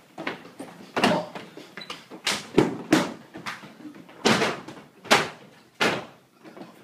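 Stage-combat blows and footfalls: an uneven run of sharp thuds and slaps, about seven strong hits with smaller knocks between them, in a room with some echo.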